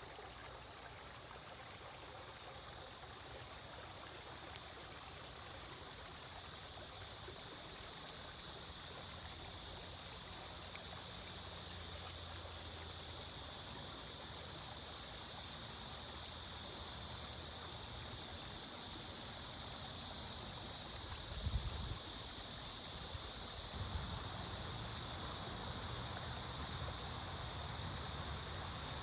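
Steady rush of water from a nearby weir cascade, a bright hiss that slowly grows louder. A brief low thump comes about two-thirds of the way through.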